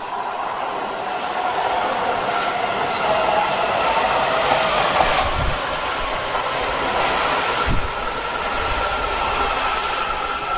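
Washington Metro (WMATA Metrorail) train pulling into a station platform and slowing down, growing louder as it arrives. Steady rail noise with a high whine from the wheels and brakes.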